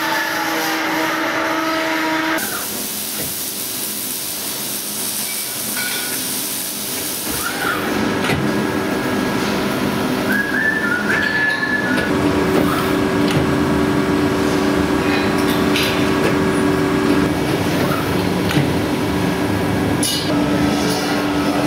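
Amada ITS-2 25.12 CNC press brake running: a steady mechanical hum with a constant low tone, a high hiss for a few seconds near the start, and a few short rising whines around the middle.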